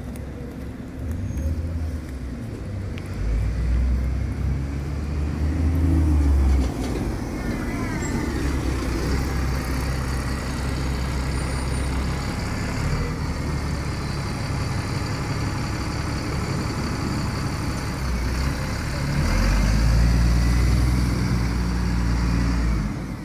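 Diesel engine of a single-decker bus running as it pulls away and drives off, amid street traffic; the engine note swells about three seconds in and again near the end.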